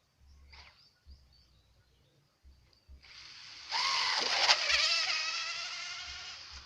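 Radio-controlled model boat's motor whining as it speeds up, its pitch rising, then fading steadily as the boat runs away.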